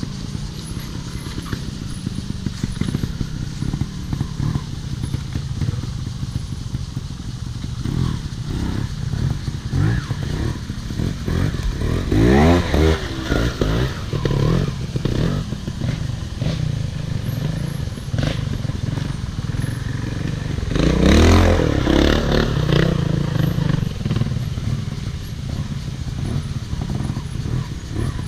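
Off-road motorcycle running on a dirt track. Its engine revs up in a rising sweep about halfway through and again louder later on, with clattering throughout.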